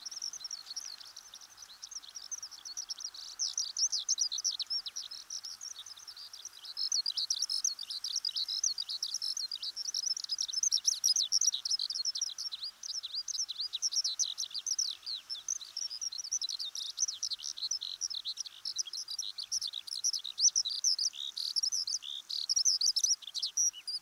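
Eurasian skylark singing: a long, unbroken stream of rapid, high chirps and trills.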